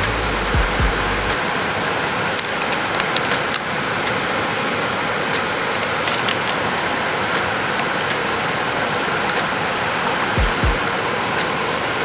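A steady rushing noise with a few sharp clicks a few seconds in, under soft background music whose low beat pulses are heard near the start and near the end.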